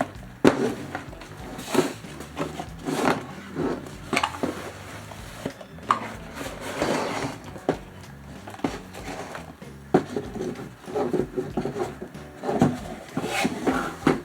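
Cardboard box being opened and handled: irregular scrapes, rustles and taps of cardboard, over soft background music.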